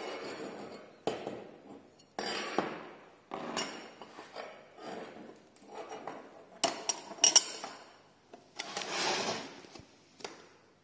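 Glass railing panel knocking and scraping against an aluminium base channel and its rubber gasket as it is rocked by hand. The sounds come as a string of irregular knocks and scrapes, with the sharpest clinks about seven seconds in and a longer scrape near the end.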